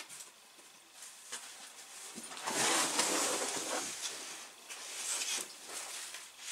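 Plastic packaging and cardboard rustling and scraping as a wrapped bicycle frame is pulled up out of its shipping box, with scattered small knocks; the rustling is loudest from about two and a half to four seconds in, with a shorter burst about five seconds in.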